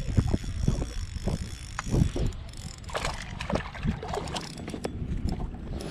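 Wind buffeting the microphone over water lapping at a kayak's hull. From about halfway in, rapid light clicks of a fishing reel as a hooked bass is fought in on a bent rod.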